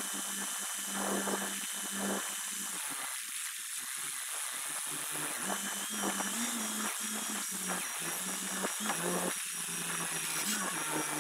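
Carelift ZoomBoom telescoping forklift running steadily while it handles a block of hay bales at a trailer's rear doors: a constant engine and hydraulic hum that shifts slightly in pitch a few times, over a steady hiss.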